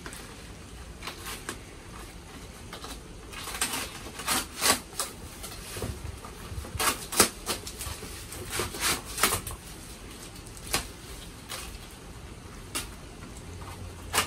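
A shipping package being opened by hand: cardboard and packaging rustling and crinkling, with scattered sharp clicks and scrapes, busiest from about four to nine seconds in.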